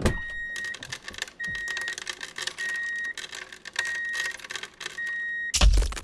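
A high electronic beep repeating five times, each about half a second long and about a second apart, like a vehicle reversing alarm, over a dense clatter of small clicks as loose toy rocks are pushed and rattled. Just before the end there is a louder rush of rocks tumbling.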